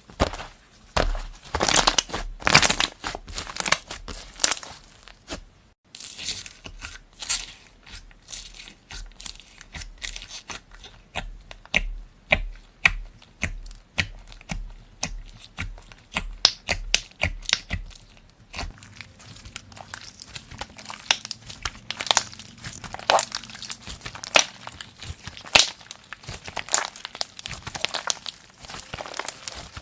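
Slime being squeezed and kneaded by hand, making a dense, irregular run of sharp crackling pops and squelches. There is a brief break about six seconds in.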